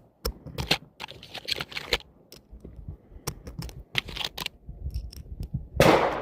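Cartridges being pressed one by one into a magazine: irregular small metallic clicks and clatters. A short, louder rush of noise comes near the end.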